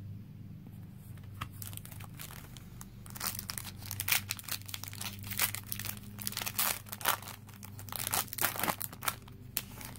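Foil Yu-Gi-Oh Star Pack booster wrapper being torn open and crinkled by hand. Quiet for the first few seconds, then from about three seconds in, loud irregular crackling and ripping of the foil that stops just before the end.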